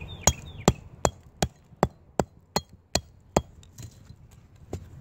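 Homemade wooden mallet striking the spine of a knife, batoning it down through a fatwood knot: about nine sharp knocks at a steady pace, roughly three a second, then two lighter knocks near the end.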